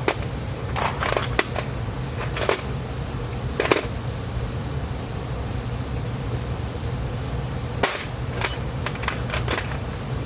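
Small metal sewing machine presser feet clicking and clinking as they are handled and set down on a surface. The clicks are sharp and come at irregular times: several in the first few seconds, a pause of about four seconds, then a quicker cluster near the end. A steady low hum runs underneath.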